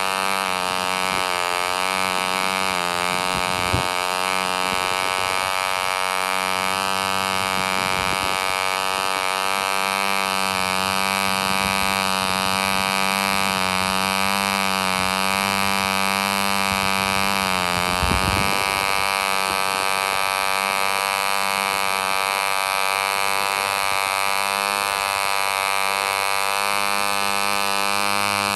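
1948 "K" Vulture Mk 1 5 cc model diesel engine, a radially ported front-rotary-valve two-stroke, running steadily at high speed while it turns a propeller, making a high-pitched buzz. Its pitch sags briefly about two-thirds of the way through, then recovers.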